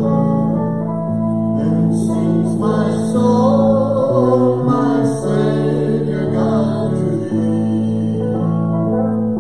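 Live church praise band playing: electric and acoustic guitars over a steady bass line, with voices singing.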